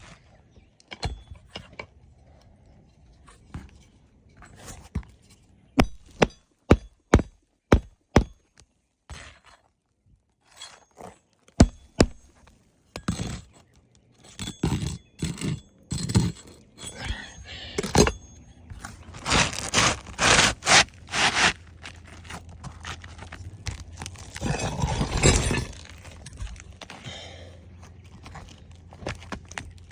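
Roof shingles being handled and fitted by hand: a quick run of sharp knocks and taps, then longer scraping and rustling passes of shingle against shingle.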